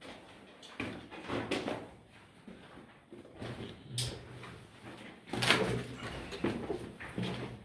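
Footsteps crunching and scuffing on the gravelly rock floor of a narrow mine drift, uneven steps with the loudest scrape about five and a half seconds in.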